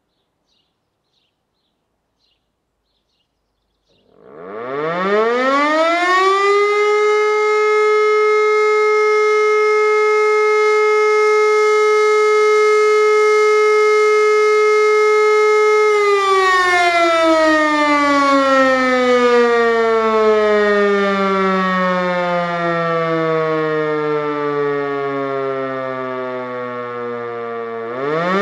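E57 electromechanical motor siren, made by Helin, sounding the German fire-alarm signal that calls out the fire brigade. It starts about four seconds in and winds up to a steady tone held for about ten seconds. It is then switched off and winds down in a long falling glide, and starts rising again for its next blast right at the end.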